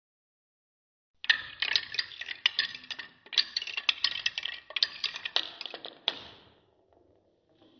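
Balls rolling and clattering down a wooden marble-run track, a rapid, uneven run of sharp clicks and clacks that starts about a second in and stops a little after six seconds.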